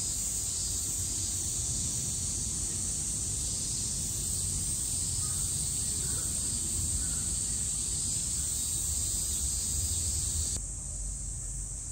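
Steady high-pitched drone of a summer cicada chorus over a low background rumble; the drone drops away abruptly about ten and a half seconds in.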